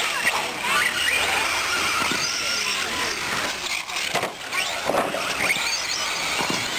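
Electric four-wheel-drive 1/10-scale short course RC trucks racing: several high-pitched motor whines rising and falling as they accelerate and slow.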